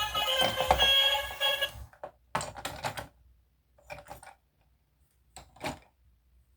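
A bright electronic tune that stops abruptly about two seconds in, followed by four short clusters of light clicks and knocks with quiet between them.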